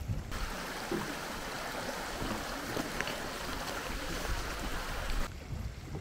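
Geothermal hot spring giving a steady rushing hiss that cuts in abruptly just after the start and cuts off abruptly near the end, over a low rumble.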